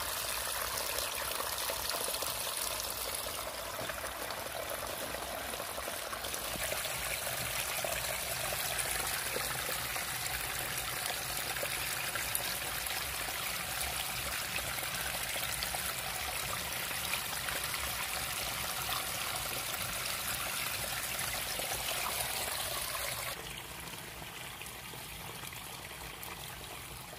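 Rainwater running and trickling steadily through grass and shallow puddles in a flooded field; the flow gets quieter near the end.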